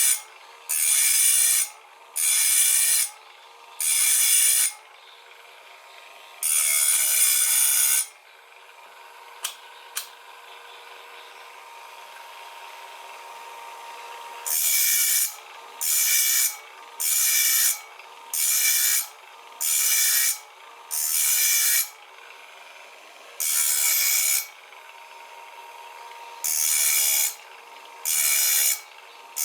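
Wipro PPM-03 sharpening machine's grinding wheel grinding the teeth of a circular saw blade one after another: a harsh rasping burst about once a second, with the motor running on with a steady whine in between. For about six seconds in the middle no tooth is ground and only the motor's whine is heard.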